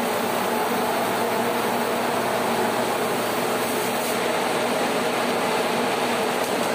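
Steady, unchanging rushing noise of moving air or gas, with no distinct knocks or tones.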